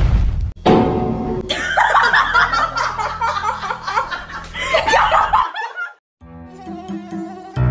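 Laughter over background music, lasting about four seconds. It starts just after the fading end of a loud blast sound effect and stops abruptly, followed by a short silence and quieter music.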